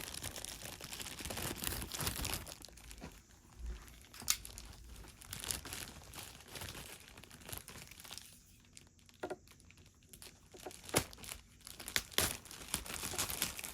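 Paper packaging crinkling and rustling in irregular bursts, with scattered sharp clicks and handling knocks, as a large boombox speaker is worked out of it; quieter for a couple of seconds past the middle, then busier again near the end.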